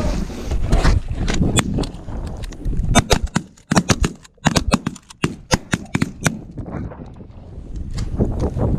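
Shotguns firing a rapid volley of many shots from several hunters at a flock of geese, over rumbling knocks and handling noise from the camera being jostled.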